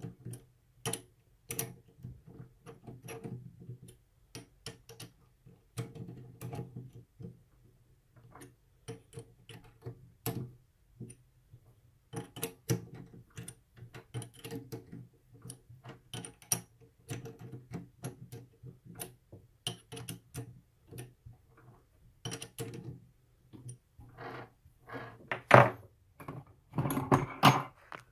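Irregular light clicks, ticks and knocks of metal parts and tools being handled on a 7x14 mini lathe, with a louder knock and a cluster of handling noise near the end.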